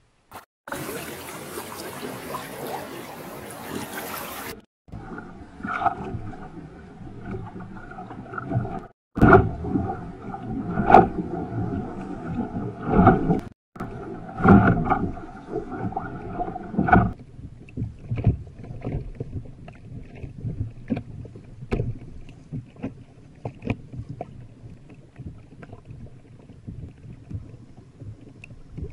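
Choppy seawater splashing and slapping against the hull of a moving pedal kayak, heard in several short clips that each cut off abruptly. Wind hiss fills the first few seconds, and a steady hum runs under the splashes in the middle.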